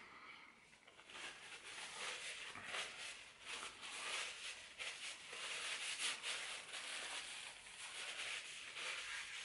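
Faint, irregular rustling and crumpling of a paper napkin as it is handled and pressed to the mouth, starting about a second in.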